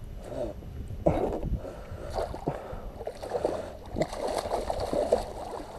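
Water sloshing and splashing against a small boat's hull over a low rumble, with a few sharp knocks spread through it.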